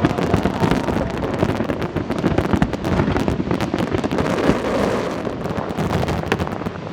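Fireworks crackling overhead: a dense, continuous stream of rapid small pops and crackles, with a few sharper reports among them.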